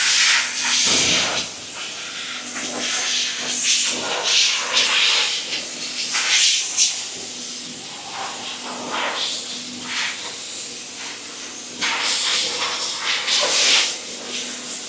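A cleaning jet hissing in repeated short bursts as a finished machine is cleaned, with a faint steady hum underneath.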